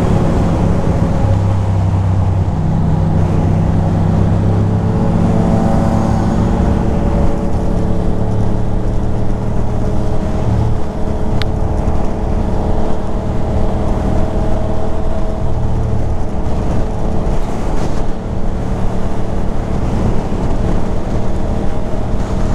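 Ducati Monster 620's air-cooled L-twin engine running at a steady highway cruise, heard from the rider's seat over a constant rush of wind noise.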